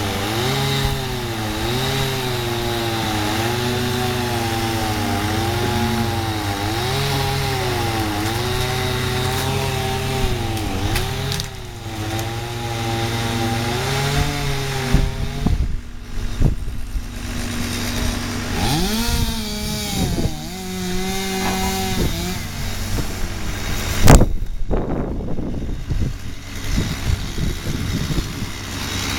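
Chainsaw cutting wood, its engine pitch dipping and recovering about once a second under load for the first ten seconds or so, then revving in uneven spurts. A single loud thud comes about two-thirds of the way through.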